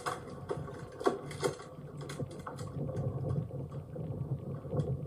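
Low, uneven rumble with a few short knocks about a second in, as a large motor yacht's bow presses into a concrete dock.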